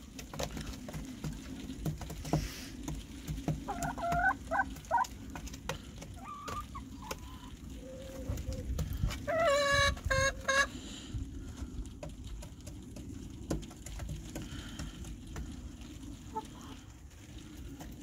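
Domestic hens clucking and calling to one another in short pitched phrases, with the loudest run of calls about nine to ten seconds in. Small clicks and rustles come from the coop's shavings underneath.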